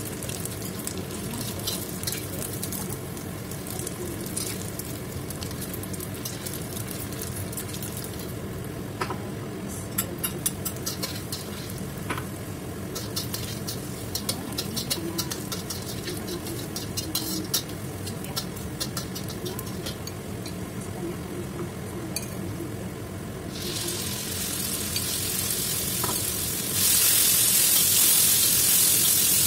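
Metal spatula scraping and clicking against a wok during stir-frying, over oil sizzling. About three-quarters of the way through the sizzle swells, and near the end it jumps loud as chicken pieces hit the hot oil and are tossed.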